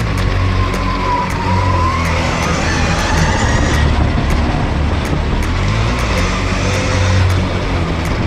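Electric KTM motocross bike's motor whining, its pitch rising and falling with the throttle, under heavy wind rumble on the rider-mounted camera.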